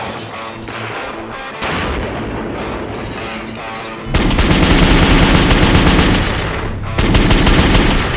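Intro music mixed with gunfire and an explosion. The loudest part is a sudden deep blast about four seconds in that dies away over a couple of seconds, followed by another loud hit about seven seconds in.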